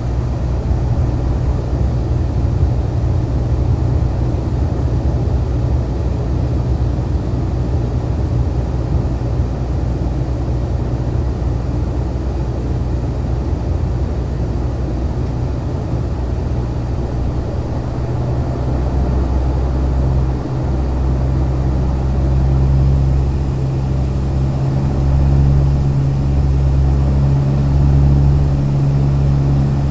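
Dash 8-100 turboprop's engine and propeller drone heard inside the cabin on approach: a steady low hum that grows louder and more distinct about two-thirds of the way through.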